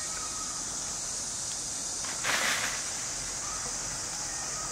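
Steady high-pitched chorus of insects, with a brief rushing hiss of noise a little past halfway.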